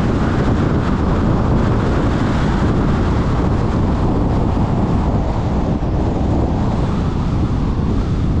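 Steady wind rush and tyre roar from a car driving at highway speed, with wind buffeting the microphone. The noise eases a little after about halfway as the car slows for a turn.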